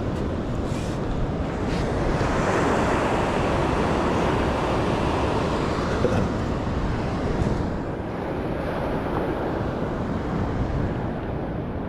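Ocean surf washing on the beach, with wind rumbling on the microphone. A wave swells about two seconds in and eases off near eight seconds.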